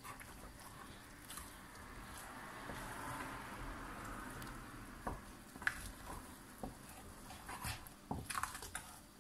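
Wooden spoon stirring a thick, stiff cooked semolina dough in a stainless steel pot: faint soft squishing, with a few light knocks in the second half.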